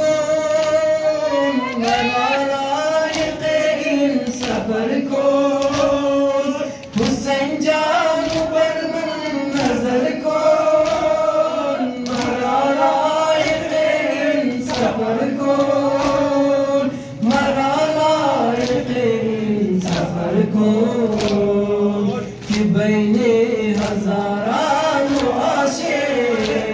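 A young man chanting a Persian/Hazaragi noha (Muharram lament) through a microphone in long held, gliding phrases with short breaks between verses. Under the chant runs a steady beat of sharp slaps, the mourners' chest-beating (matam).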